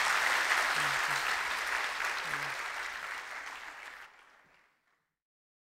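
Audience applauding in a lecture hall, a dense steady clapping that dies away about four seconds in.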